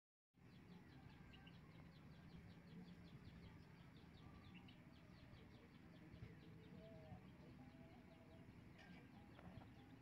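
Faint outdoor ambience that cuts in just after the start: a fast, even series of short high chirps, about five a second, over a low rumble.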